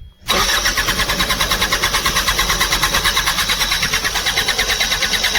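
Bobcat loader's diesel engine cranking on its electric starter with a fast, even pulsing for about five seconds without catching, then stopping near the end. It fails to fire because no diesel is getting through; the mechanic suspects the fuel pump, which is getting no current.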